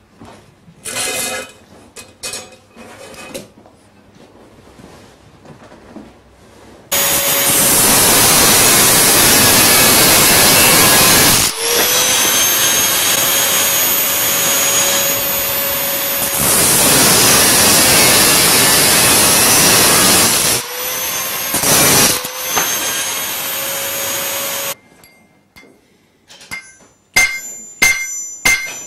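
A power tool grinding or cutting steel at a workbench: a loud, steady grinding noise with a motor whine, after a few seconds of light clinks. It runs in long stretches with two short breaks, and after each break the motor whine winds back up. In the last couple of seconds a hammer strikes metal on an anvil several times, each blow ringing.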